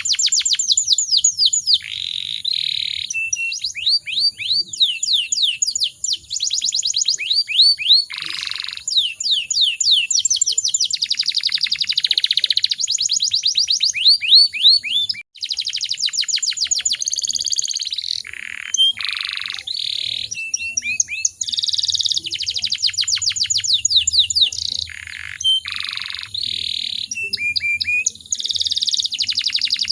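Domestic canary singing a long, nearly unbroken song of fast trills, each made of quick falling notes, changing speed from phrase to phrase and mixed with buzzy rolls.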